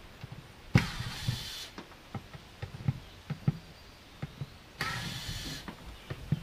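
Knocks and clunks from working on a pontoon boat's old seats, with two short noisy bursts, about a second in and again near five seconds.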